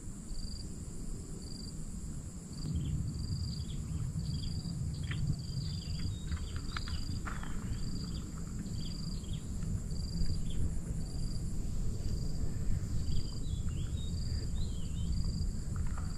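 Insects chirping: a short, high cricket-like chirp repeats a little more than once a second over a steady high-pitched insect drone. A few brief sweeping chirps come in the middle and again near the end, over a low rumble.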